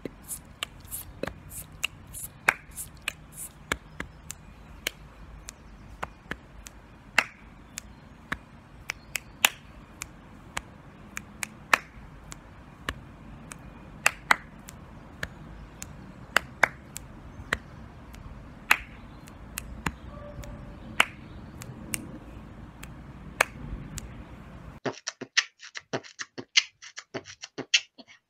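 Body percussion with the hands: a long run of sharp, irregular clicks keeping a 'boots and cats' beat. About three seconds before the end it changes to a thinner, faster clicking heard through a video call.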